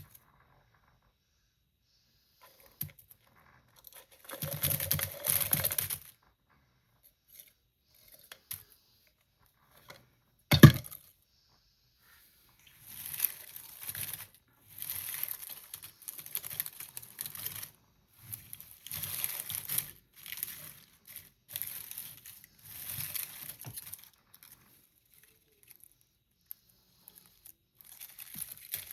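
Candy packaging being torn open and crinkled by hand, in repeated bursts of rustling and crackling, with one sharp knock about ten seconds in.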